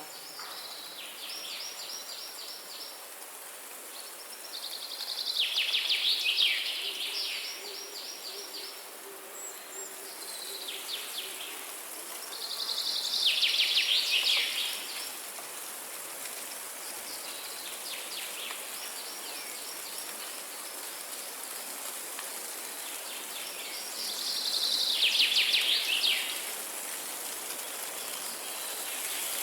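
A songbird singing repeated trilled phrases, each a second or two long and made of rapid notes, the loudest coming every six or seven seconds, over a steady high hiss.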